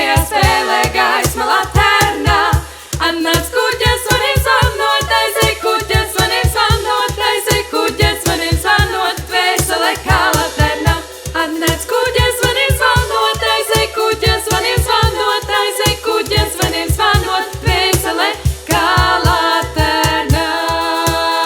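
Female a cappella vocal group singing close harmony without words over a quick, steady low beat. The voices settle onto a held chord near the end.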